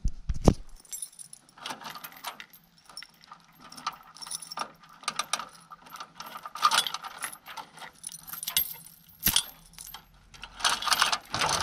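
Keys jangling and a metal gate chain rattling as the gate's lock is worked, with scattered clicks and clanks of metal on metal; the rattling gets denser and louder near the end.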